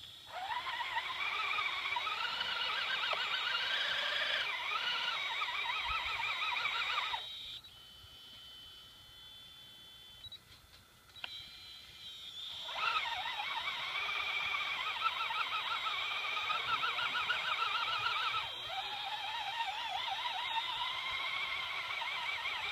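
Small electric motor and gears of an RC scale crawler whining under strain, the pitch wobbling up and down as the winch struggles to pull the truck out of the mud; the whine stops for about five seconds partway through, then starts again.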